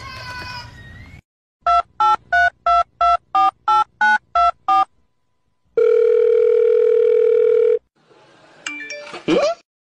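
Touch-tone telephone dialing: about ten quick two-tone keypad beeps, then after a pause one steady ringing tone lasting about two seconds. A short swooping sound follows near the end.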